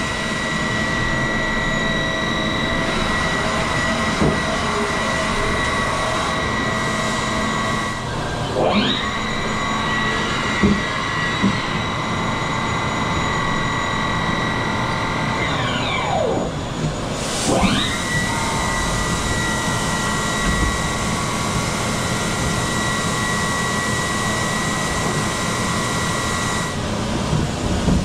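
Haas 5-axis CNC machining center's spindle whining at a steady high speed over a steady noise. The whine drops and spins back up about eight seconds in, winds down and spins back up around sixteen to eighteen seconds, and dips and rises again near the end.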